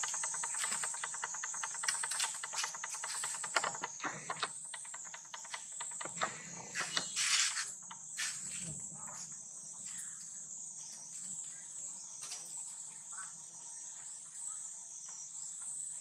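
Steady high-pitched drone of insects, with rapid clicking over the first few seconds and scattered clicks after.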